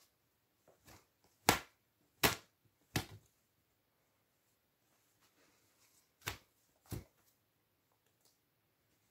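Short, sharp snaps of seams and stitching giving way as a stuffed plush horse is pulled apart by hand: three in quick succession, then two more a few seconds later.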